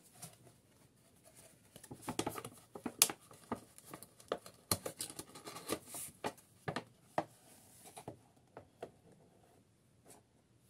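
A cardboard doll box and its packaging being handled and set down on a table: a run of light clicks, taps and rustles, busiest from about two to eight seconds in.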